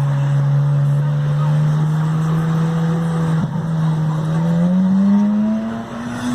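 Ferrari 458 Italia's V8 engine running at a steady note, then rising in pitch about four seconds in as the engine speeds up.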